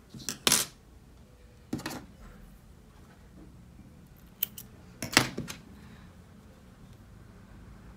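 A few sharp clicks and taps of small crochet tools being handled on a wooden table: spring thread snips and a metal crochet hook picked up, used and set down. The loudest clicks come about half a second in and again about five seconds in.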